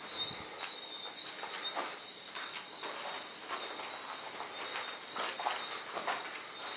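Crickets chirping steadily at night, a continuous high-pitched trill, with soft scattered footsteps on a gritty dirt floor.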